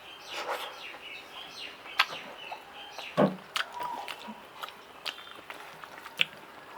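Someone eating rice and curry: scattered lip smacks and chewing clicks, with birds chirping faintly in the background.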